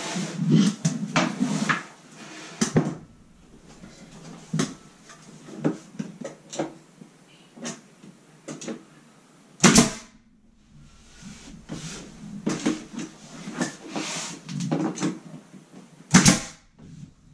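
Pneumatic brad nailer firing into wood trim, with its two loudest shots near the middle and near the end. Between them come scattered knocks and taps as the trim pieces are handled and pressed into place.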